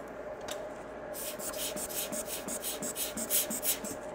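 A small brush scrubbing flux residue off a phone logic board, a quick run of even strokes at about five a second that starts about a second in.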